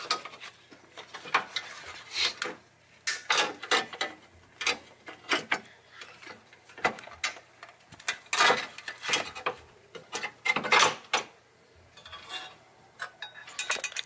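Irregular clicks, taps and scrapes from hands handling a thin sheet-metal hood latch mount while threading the hood release cable through it and fitting rubber grommets.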